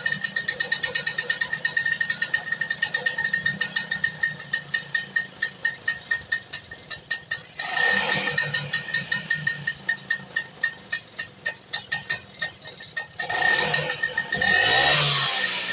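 Vespa scooter engine running with a fast, even firing beat, turning louder and rougher briefly about halfway through and again near the end.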